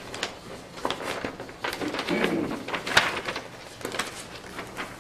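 Small clicks, knocks and rustles of papers and furniture at a meeting-room dais, with a brief low murmured voice about two seconds in.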